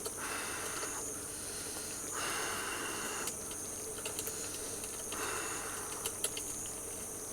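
Outdoor ambience by a running valley stream: a steady high-pitched insect drone over a soft rushing haze that swells and fades every second or so, with a few faint clicks.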